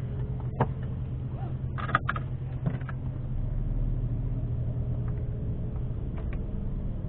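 Volkswagen Golf 7R's tuned 400 hp turbocharged four-cylinder idling steadily, heard from inside the cabin, with a few short sharp clicks in the first three seconds.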